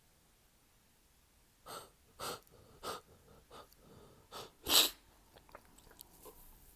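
A man's sneezing fit of stifled sneezes: three short, sharp sneezes close together about two seconds in, then a louder, fuller stifled sneeze just before five seconds.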